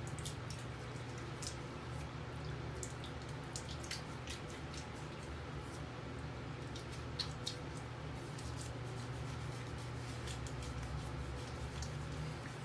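Water dripping and splashing in a sink as cupped hands scoop bloom water up onto a face to wet it before shaving: many small scattered drips over a steady low hum.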